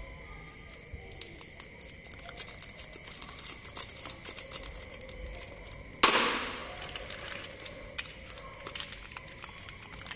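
Plastic candy wrappers crinkling and crackling as they are handled and unwrapped by hand. About six seconds in there is one sudden loud crackling burst that fades over about a second.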